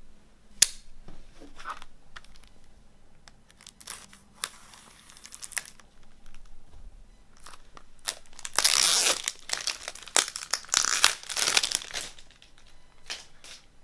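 Plastic shrink wrap on a CD jewel case being slit with a knife, then torn and crinkled off by hand. There is a sharp click near the start, and the crinkling is loudest and longest in the second half.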